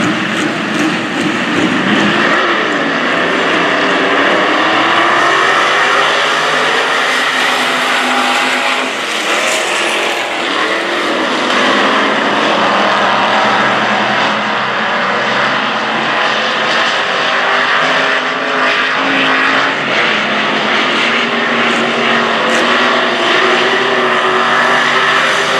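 A pack of dirt-track stock cars racing, several engines running hard together, their notes rising and falling as the cars go through the turns.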